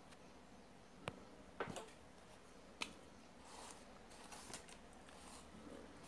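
Near silence with a few faint clicks and soft rustling as a small metal flatlock-machine looper is handled and moved about on a sheet of paper.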